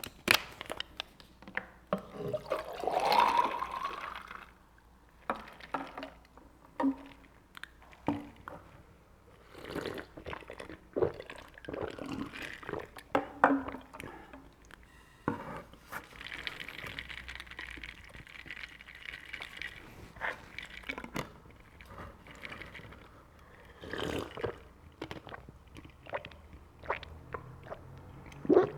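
Cherry blossom apple juice drink poured into a glass, its pitch rising as the glass fills about two to four seconds in. A second, steadier pour follows a little past half-way. Scattered clicks and knocks come from the container and glass being handled.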